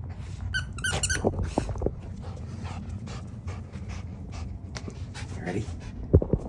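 Cavapoo panting in quick, even breaths, with a few sharp short noises about a second in and two brief louder sounds near the end.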